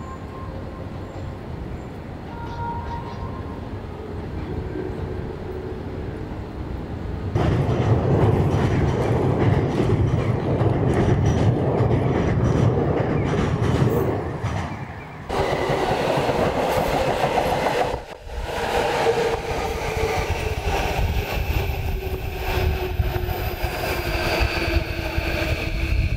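Electric commuter trains with city street noise. A train rumbles and rattles loudly over a steel rail bridge, and later trains pass close by with the steady whine of their electric motors over the wheel noise.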